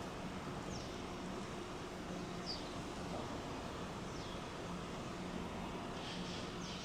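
Quiet outdoor background: steady low noise with a faint hum, and a few short, high bird chirps, each falling in pitch, spread through it.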